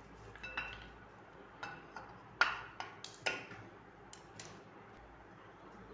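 Handling of an aluminium pressure cooker lid and its handle: about eight sharp clicks and knocks, irregularly spaced, the loudest about two and a half seconds in.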